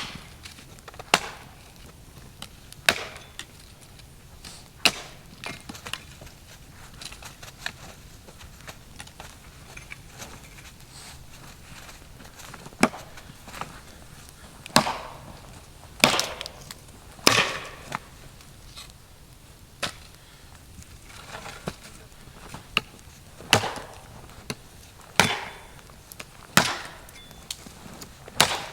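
Wood being chopped: sharp knocks at irregular intervals, one to two seconds apart, some with a short splintering crack.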